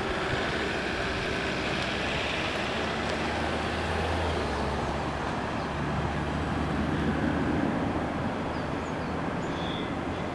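VL10U two-section electric locomotive hauling a freight train of tank cars approaching, with a steady low hum over the noise of its wheels on the rails.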